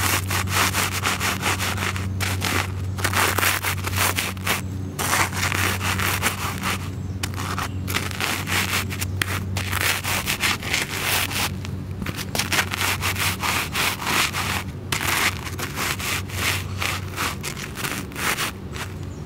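Sears Gold Bond work shoes grinding and crushing crouton crumbs into pavement: gritty scraping crunches, one stroke after another with short pauses between.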